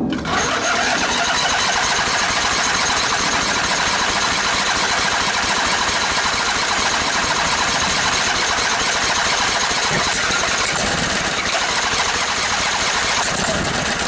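Briggs & Stratton Intek OHV twin-cylinder engine cranked steadily on its starter for about fourteen seconds without catching: its fuel solenoid has no power and stays closed, so no fuel gets through the carburetor.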